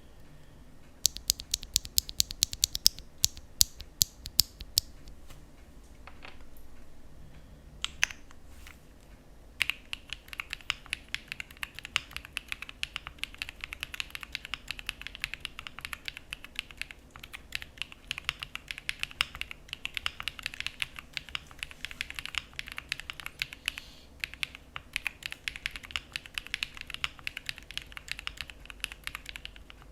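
Jris75 mechanical keyboard with Sarokeys BCP linear switches being typed on: a run of separate sharp key presses, then a few more after a short pause, then steady fast typing from about a third of the way in.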